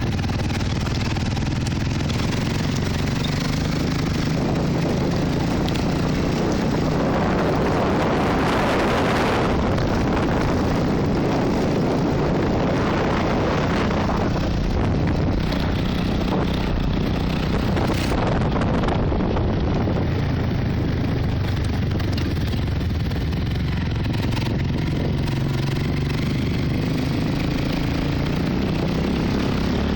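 Trail motorcycle engine running steadily while being ridden, with a continuous rushing noise over it.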